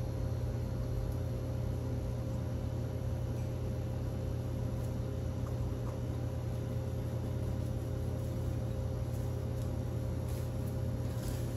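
Steady low mechanical hum of kitchen equipment, with a faint constant tone above it and a couple of faint ticks near the end.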